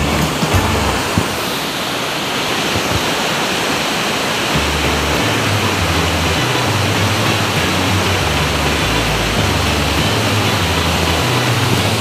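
Waterfall rushing steadily as a heavy flow of white water plunges over rocks into a pool. From about four seconds in, the low notes of background music run faintly underneath.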